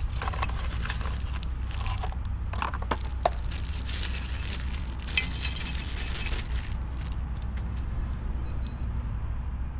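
Cardboard box and packaging of a new camera tripod or gimbal being opened and handled: scattered clicks and cracks, with a stretch of denser rustling about halfway through, over a steady low rumble.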